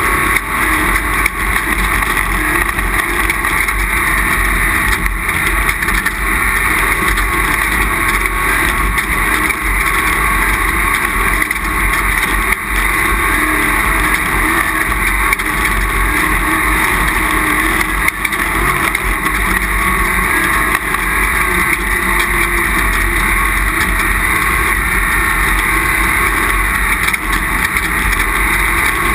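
Off-road race vehicle's engine running hard at speed, heard from on board as a loud, steady, unbroken roar of engine and low rumble with small jolts.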